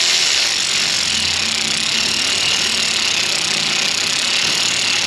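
A machine running steadily: a loud, even hiss with a faint low hum underneath.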